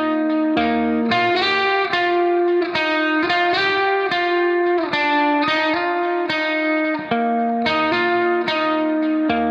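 Background music led by a plucked guitar, playing a melody of sustained notes.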